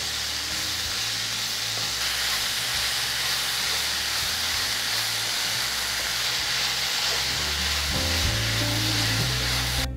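Chopped banana flower sautéing on a high flame, a steady sizzle of hot oil, as it is stirred and tossed in the pan with a wooden spatula. Background music comes in near the end.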